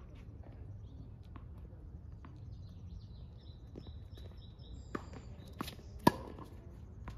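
Tennis ball being struck and bouncing on a hard court: a few sharp pops about half a second apart, the loudest about six seconds in. Faint bird chirps come just before them.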